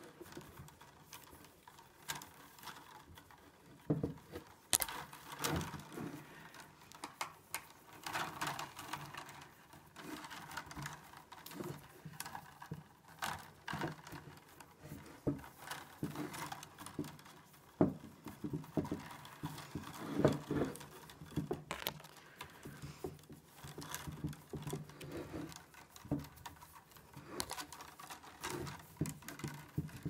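Green willow rods rustling, clicking and tapping against each other as they are woven by hand around willow uprights: a run of irregular light taps and scrapes.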